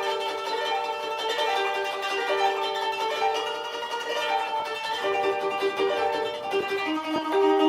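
Instrumental music led by a plucked string instrument playing a running pattern of notes.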